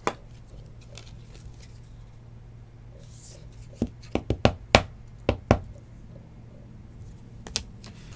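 Sharp plastic clicks and taps of trading cards in hard plastic holders being handled and set down: one click at the start, a quick run of about eight clicks in the middle and one more near the end, over a low steady hum.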